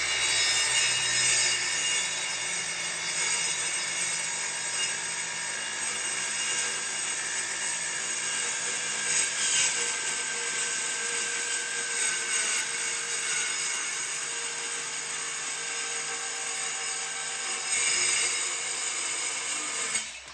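Milwaukee M18 FUEL 2782-20 cordless metal-cutting circular saw running under load as its blade cuts through 3/8-inch steel flat bar in one long continuous cut, a steady whine over harsh cutting noise. It gets a little louder near the end and stops abruptly as the cut finishes.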